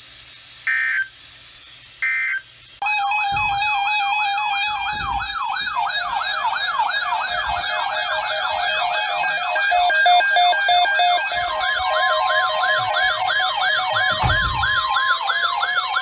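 Two short bursts of emergency-alert data tones, then from about three seconds in a loud electronic siren-style alert: several rapidly warbling tones layered together. A steady tone and a rising glide join near the end.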